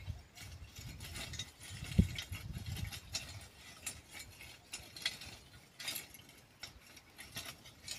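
Hand rake dragged through dry, cloddy soil in short strokes, its tines scratching and crunching over the clods as it covers broadcast onion seed. There is a sharper knock about 2 seconds in.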